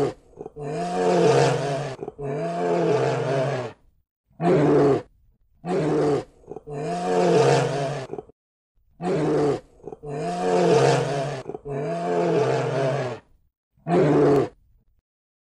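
Bear growls played as a sound effect: a string of deep, loud growls with short gaps between them, the same sequence seeming to repeat about halfway through.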